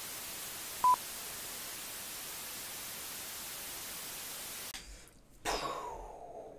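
Intro sound effects: a steady TV-static hiss with one short, loud, high countdown beep about a second in. The static cuts off before five seconds in, and a man then calls out in a voice that slides down in pitch.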